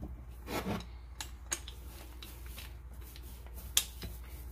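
Rolling pin rolling out a folded, buttered block of puff pastry dough on a floured granite countertop: soft rubbing with a few sharp knocks, the loudest a little before the end.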